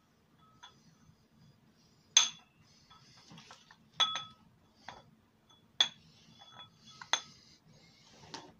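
Sharp metallic clinks and knocks, about five of them spread over several seconds, each with a short bright ring, as a metal tube with a ribbed hose attached is handled and knocked about.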